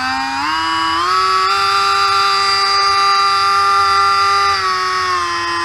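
Dremel 800 10.8 V cordless rotary tool's motor running with a high whine. The pitch steps up several times in the first second and a half as the speed is raised, holds steady, then steps down near the end. This is the speed control working through its settings after the potentiometer switch repair.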